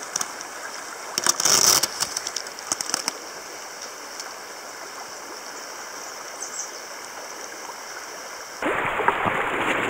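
River water running steadily, with a burst of sharp clicks and knocks in the first few seconds as the clear plastic viewing case is handled. Near the end the water abruptly becomes louder and closer.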